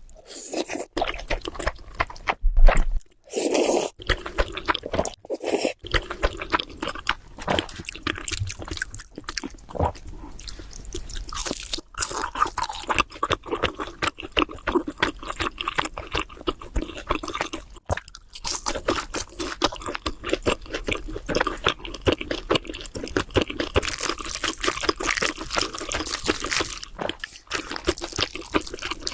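Close-miked mouth sounds of someone eating spicy noodles: wet chewing and crunching with many quick, irregular clicks throughout.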